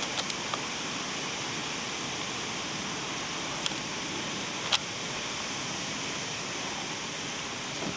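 Steady hiss of wind, with a few short sharp clicks, the clearest nearly five seconds in.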